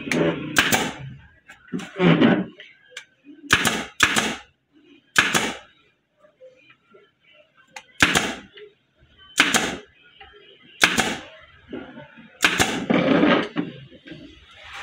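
Pneumatic upholstery staple gun firing, about ten sharp shots spaced one to two seconds apart with a longer pause in the middle, each a short blast of air as a staple is driven through the fabric into the wooden seat frame.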